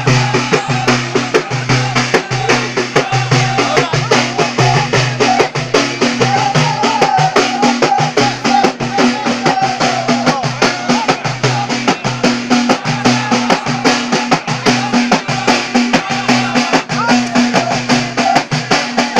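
Amazigh line-dance music in the Ahidous style: a row of men singing together in long held chorus notes over fast, steady hand-drumming.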